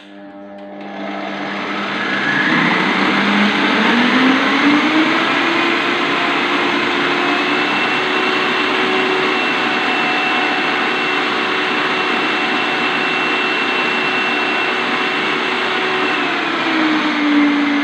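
Kenwood kitchen machine's food-processor attachment running, its motor whine rising in pitch over the first few seconds as it gets up to speed, then holding steady. It is blending almonds, icing sugar, margarine, flour and an egg into shortcrust dough. The pitch drops a little near the end.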